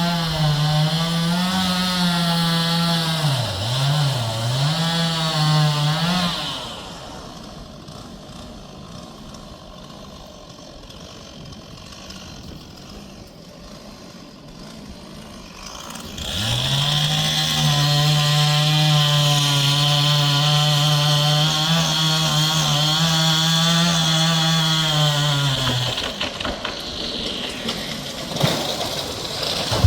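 Two-stroke chainsaw running at high revs while cutting trees, its pitch dipping under load about three to four seconds in. It drops to a much quieter level for roughly ten seconds, then runs at high revs again, steady, for about ten seconds before easing off near the end.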